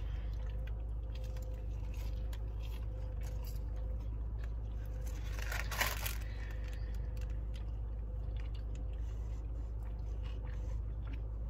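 A person biting into and chewing a Whataburger patty melt: soft crunches and mouth sounds, with one brief louder crunch about six seconds in. A steady low hum runs underneath.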